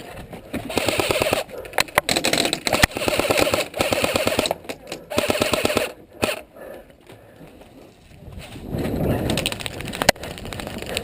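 Battery-powered airsoft electric gun firing on full auto in about five short rapid bursts over the first six seconds.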